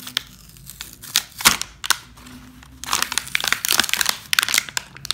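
Clear plastic blister packaging being torn open and crinkling, with a sharp snap about one and a half seconds in and dense crackling through the last two seconds.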